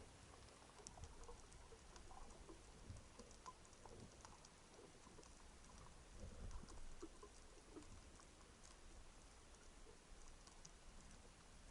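Faint underwater ambience: scattered soft crackling clicks with a low rumble of moving water.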